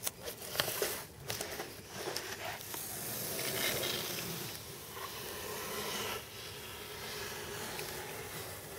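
Blue masking tape being peeled off a moulded fibreglass wing: a long hissing rip, with a few sharp ticks in the first second or so.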